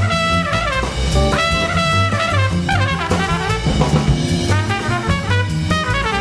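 Background jazz music with brass horns playing over a steady drum-kit beat.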